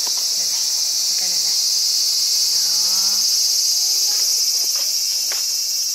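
A loud, steady chorus of cicadas: one continuous high-pitched shrill drone that never breaks, with faint voices underneath.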